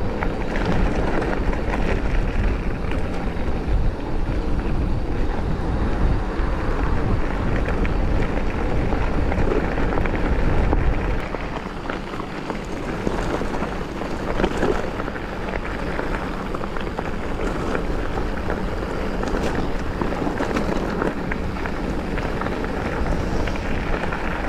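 Mountain bike rolling along a rough trail: steady tyre noise with scattered clicks and rattles from the bike, and wind buffeting the microphone. The low rumble eases off about halfway through.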